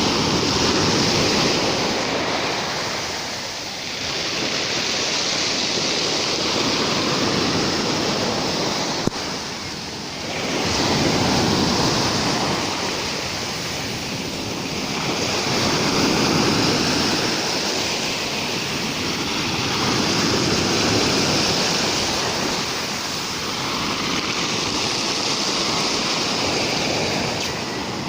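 Rough sea surf breaking on the shore, the rush of the waves swelling and easing about every four to five seconds. A single short click about nine seconds in.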